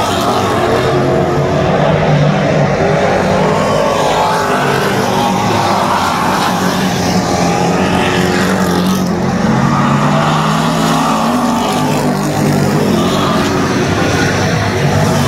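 A field of dirt-track race cars racing around the clay oval, several engines running hard at once. Their pitch rises and falls as the cars come past and go down the straights.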